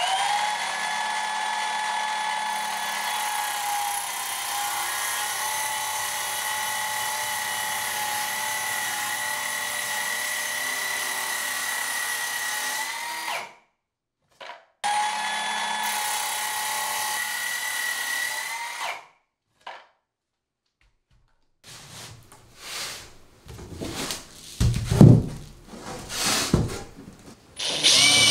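HiKOKI cordless circular saw cutting plywood along a straight-edge guide in two long passes. Each pass spins up, whines at a steady pitch through the cut and winds down at the end. After a pause, several seconds of irregular knocks and clatters.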